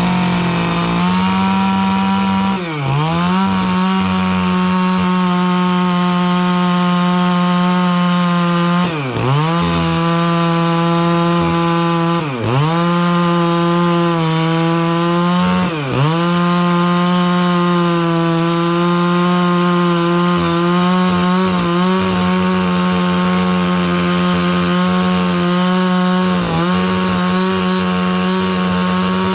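Stihl 660 two-stroke chainsaw with a 36-inch bar running at full throttle, ripping lengthwise through dry larch. The engine note holds steady, and five times it dips briefly and recovers.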